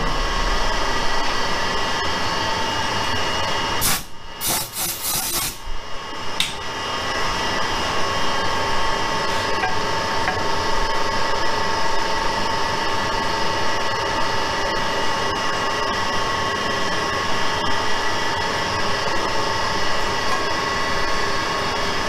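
Metal lathe machining an alloy wheel's center bore, running with a steady whine. About four to six seconds in there is a short cluster of sharp knocks and clatter, and then the steady machine sound carries on.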